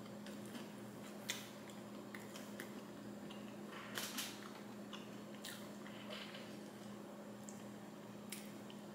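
Faint mouth sounds of a person chewing a soft, sticky brownie with cookie dough frosting: scattered soft smacks and clicks, a little stronger about a second in and around four seconds in, over a steady low hum.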